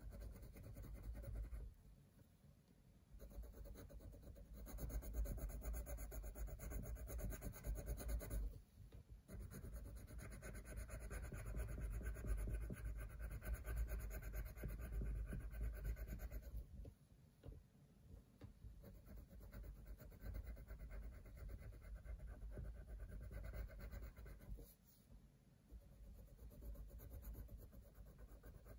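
Coloured pencil shading on sketchbook paper: quick back-and-forth strokes in long runs, with short breaks about two and nine seconds in, and softer strokes in the last third.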